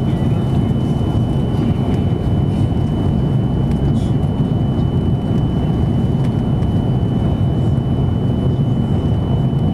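Airbus A330-200 cabin noise in flight: a steady, even rumble of engines and airflow, with a thin constant high tone running through it.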